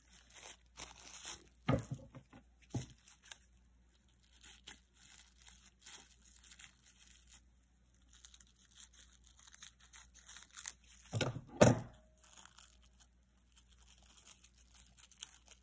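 Clear plastic cling wrap crinkling and rustling as it is picked and pulled off a small necklace pendant, with scattered light clicks. A louder cluster of sharp clicks comes about eleven seconds in.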